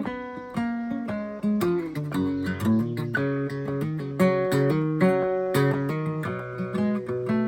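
Guitar playing an instrumental break in a song, a run of quickly plucked notes with no singing.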